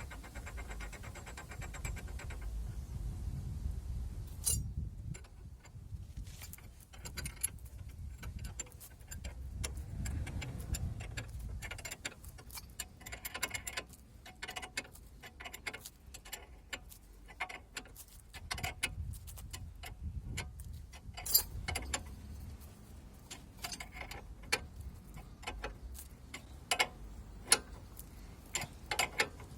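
Hand tools working on steel suspension parts: a rapid, even run of ticks for the first couple of seconds, then scattered metallic clicks, clinks and knocks.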